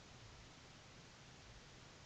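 Near silence: a faint steady hiss with a faint low rumble underneath.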